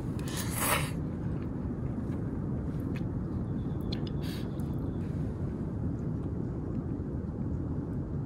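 Ramen noodles slurped from a pot, one short noisy slurp about half a second in and a weaker one near four seconds, over a steady low rumble of background noise.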